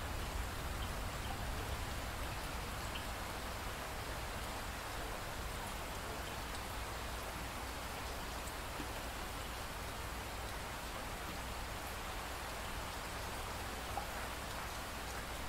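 Steady rain: an even hiss with a few faint, scattered drop ticks.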